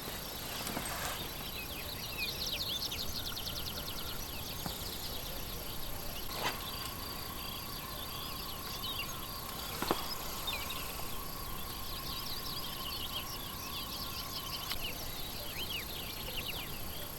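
Outdoor nature ambience: many small creatures chirping rapidly and high, over a faint steady tone in the middle stretch. Two short sharp clicks come about six and ten seconds in.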